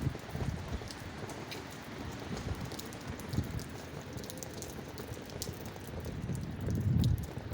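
Rain falling steadily, an even patter with scattered sharp drops, and a louder low rumble near the end.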